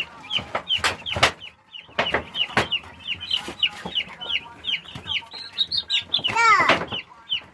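Chickens giving short, high, falling calls over and over, about two or three a second, with a few sharp knocks in the first few seconds and a loud falling cry about six seconds in.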